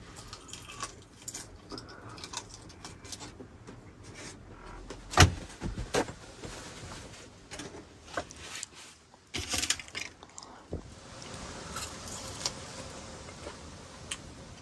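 Crumpled aluminium foil crinkling and rustling as a rack of ribs is handled and eaten off it, with scattered clicks and knocks. The loudest knock is about five seconds in, and there is a short cluster of them near ten seconds.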